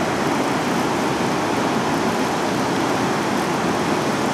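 Steady roar of rushing water pouring through the dam's outflow, a constant even noise with no breaks.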